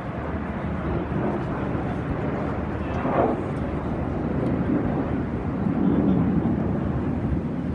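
Airplane flying past, a steady low rushing engine noise that grows louder toward the later part.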